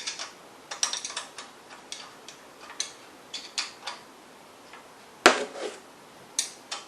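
Ratchet wrench clicking in short, irregular runs as the new pump's mounting bolts are tightened down, with one louder metallic knock about five seconds in.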